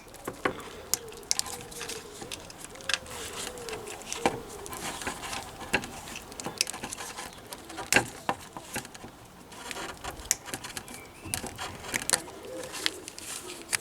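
Irregular small clicks and knocks of hands working on vehicle tail-light wiring and connectors, with a pigeon cooing softly in the background.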